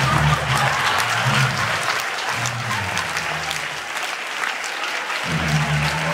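Audience clapping, a dense patter of many hands, over a low hum that breaks off and comes back near the end.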